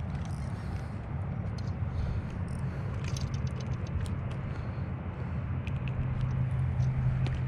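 A steady low engine hum, growing a little louder about six seconds in, with small scattered clicks and rattles from handling a hooked fish and its jig.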